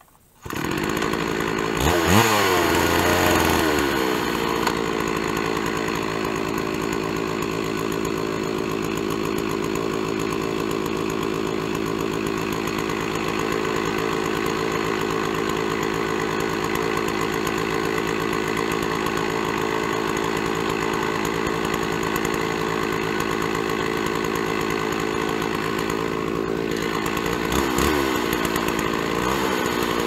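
Stihl 660 two-stroke chainsaw on a Norwood PortaMill chainsaw mill, running. It comes in suddenly, revs up and down about two seconds in, runs steadily, then revs again near the end.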